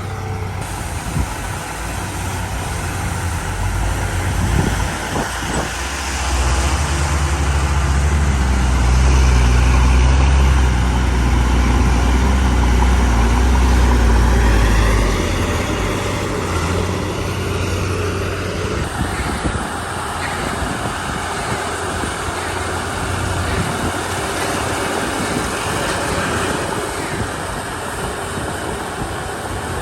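Komatsu D31 crawler bulldozer's diesel engine running, growing louder and deeper from about six seconds in until about fifteen seconds, then easing back to a steadier level.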